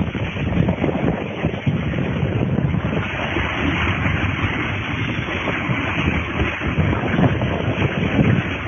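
Wind rushing over the phone's microphone on a fast ride down a long outdoor slide, over the steady rumble of the rider sliding along the slide's surface.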